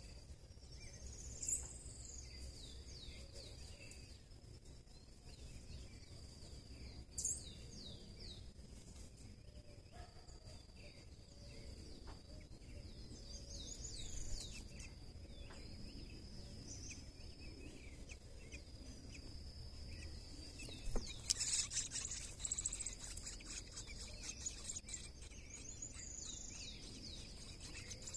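Birds chirping at intervals over a steady, high-pitched insect drone, with the loudest flurry of chirps and clicks about two-thirds of the way through.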